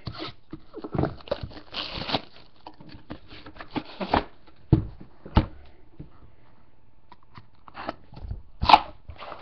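A box cutter slits the seal of a cardboard case with short rustling strokes. Then come scraping and knocks as a trading-card box is lifted out and set down, with a loud rustle near the end.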